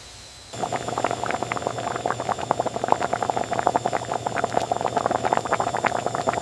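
Large pots of corn in lime water boiling vigorously during nixtamalization: a dense, irregular bubbling and popping that starts abruptly about half a second in.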